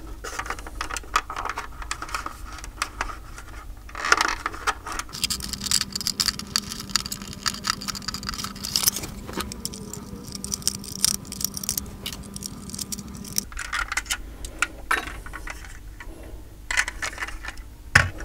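Small scrapes, rattles and clicks of a diecast model car and its cardboard box insert being handled while the thin metal twist-tie wires holding the car are untwisted. A steady low hum runs for several seconds in the middle.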